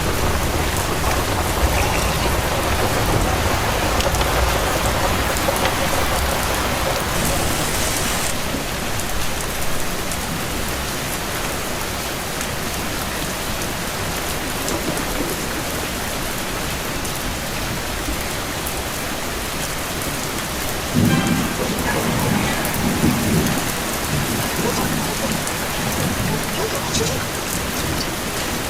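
Heavy rain falling steadily, an even hiss throughout, with a low rumble underneath in the first several seconds and a brief louder low-pitched patch a little past the twenty-second mark.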